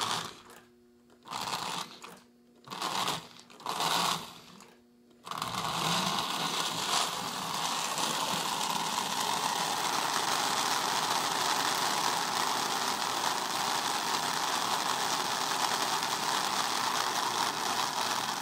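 Electric motor of a Marx 333 toy steam locomotive whirring in a few short bursts over the first five seconds, then running steadily.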